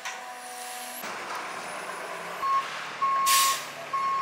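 A water truck's reversing alarm beeping about once a second, starting a little past halfway, with a short air-brake hiss between the second and third beeps.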